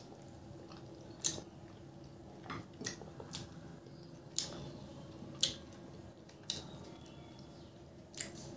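Close-miked chewing and wet mouth smacks of a person eating puri and chicken curry by hand. Short sharp smacks and clicks come every second or so, the loudest about five and a half seconds in.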